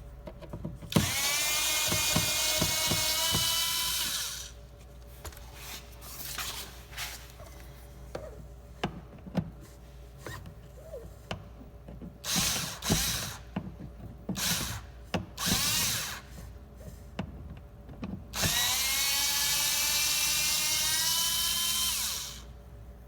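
Power screwdriver backing out the Phillips screws behind a door trim cover. A motor whine rises in pitch as it spins up and runs for about three seconds near the start and again near the end, with short bursts and clicks in between.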